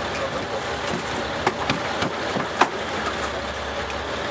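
Steady rumble of the fishing boat's engine mixed with wind and water wash, broken by a few sharp clicks, the loudest about two and a half seconds in.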